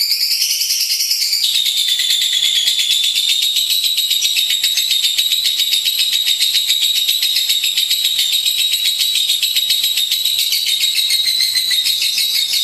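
Lovebird singing an unbroken, very rapid, high-pitched chattering song. Its note pattern changes about a second and a half in, then holds steady.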